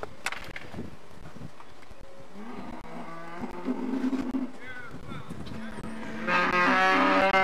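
Cattle mooing: a quieter moo a couple of seconds in, then a louder, longer moo near the end.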